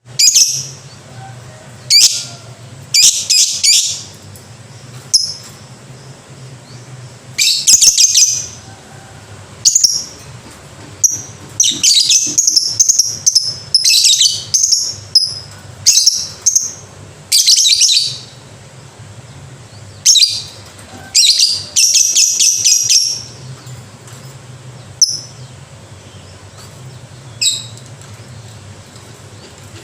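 Lovebird calling in loud, shrill bursts of rapid repeated notes, several drawn out into long chattering runs, the 'ngekek' song, with short pauses between bursts.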